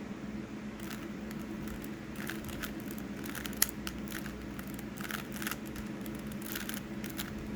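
Rubik's Cube being turned by hand: short runs of plastic clicks as the layers are twisted through an algorithm, starting about a second in, over a steady low hum.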